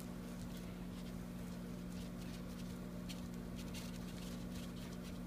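Metal fork scraping and mashing into the soft flesh of a baked potato on a foam plate: faint, irregular soft scrapes and taps over a steady low hum.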